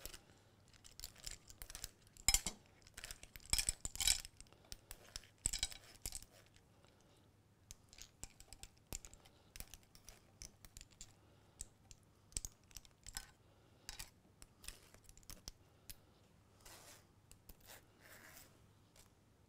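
A metal ladle scrapes and clinks against a steel strainer bowl as cooked seafood is spooned out, with clam and mussel shells clattering onto a serving pan. The clinks come irregularly, loudest and most frequent in the first six seconds, then sparser.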